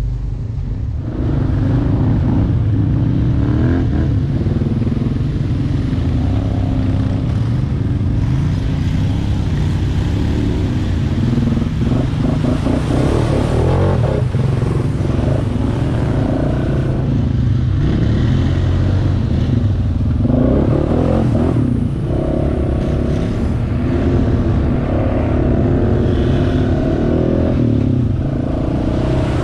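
ATV engine running steadily under way, heard from a camera mounted on the quad's front rack. The sound swells and eases as the throttle changes.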